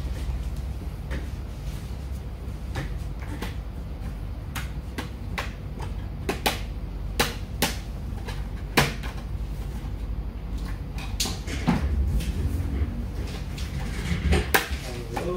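Irregular sharp clicks and light knocks over a low steady hum, from handling the freshly upgraded Lenovo IdeaPad 330 laptop while it starts up.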